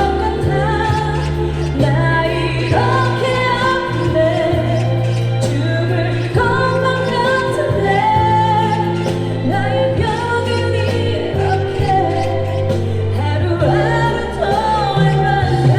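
A woman singing a ballad live over a pre-recorded backing track, with sustained low bass notes under the vocal line.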